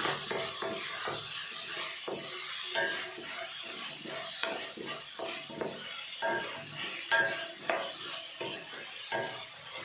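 A wooden spatula stirs and scrapes chunks of brinjal (eggplant) around a stainless steel kadai, at about two irregular strokes a second. Beneath the strokes is a faint sizzle of the vegetables sautéing in oil.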